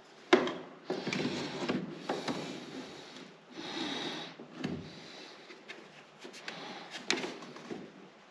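Hard plastic clicks, knocks and rubbing as the cleaned condensate siphon of a Buderus GB192 gas condensing boiler is handled under the boiler, with a sharp click just after the start, another about seven seconds in, and a short hiss around the middle.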